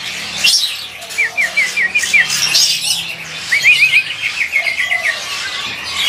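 Caged songbird singing runs of quick, short, downward-slurred chirps: a short run about a second in and a longer run of about ten notes past the middle. Other caged birds call in the background.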